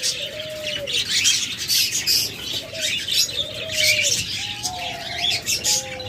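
Many caged birds, lovebirds among them, chirping in a dense, high, unbroken chatter, with short low cooing calls of doves coming in about once a second.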